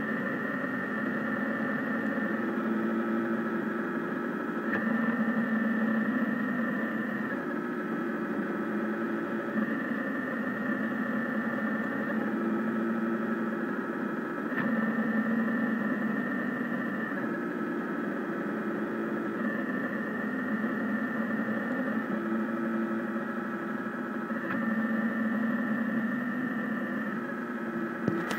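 Rostock delta 3D printer's stepper motors whining as the print head traces a thin-walled square, the set of tones shifting every couple of seconds as the head changes direction and repeating about every five seconds, lap after lap.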